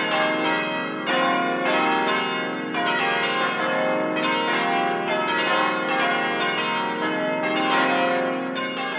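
Church bells pealing, struck about twice a second in a continuous sequence, each note ringing on under the next.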